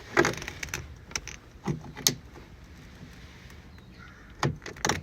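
Hand tools clinking and knocking against metal in a car's engine bay as a bracket is loosened: a few sharp clinks near the start, two more about two seconds in, and another pair near the end.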